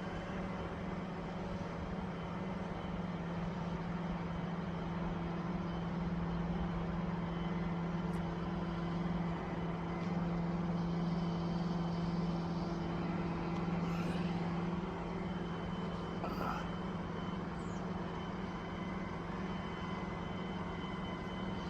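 A crane's engine running steadily with a low, even hum, a little louder in the middle.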